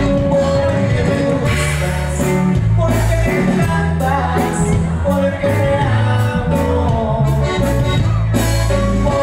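A live Mexican norteño band playing loud through the stage PA: accordion, acoustic guitar, bass and drums, with a steady bass line and an accordion melody.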